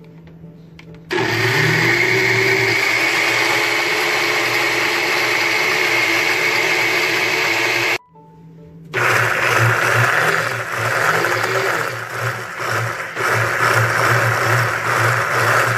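Countertop blender motor running at speed, grinding toasted sesame seeds and oil into tahini paste. It starts about a second in and runs steadily, cuts off suddenly about eight seconds in, then runs again with a less even sound.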